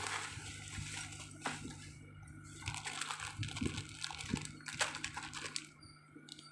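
Packaging being handled and opened: scattered rustles and small clicks over a steady low hum.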